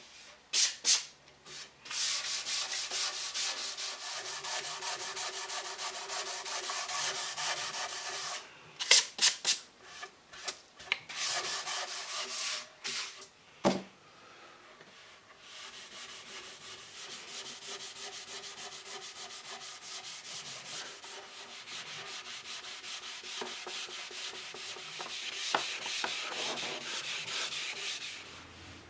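Sanding the dried sealer coat on a solid mahogany desk writing surface to prepare it for the final finish coat: a steady scratchy rubbing in two long stretches. In the middle the sanding breaks off for a few short louder scrapes and one sharp knock.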